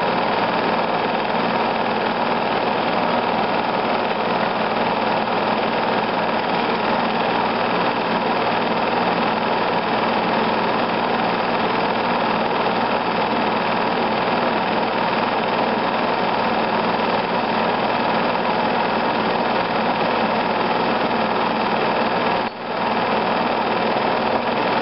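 Home-movie film projector running steadily, a continuous mechanical whirr that briefly dips about 22 seconds in.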